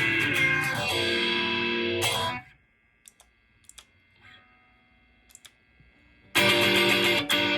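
Electric guitar playing through effects, stopping about two seconds in; after a few seconds of near quiet with a few faint clicks, the guitar comes back in loudly near the end.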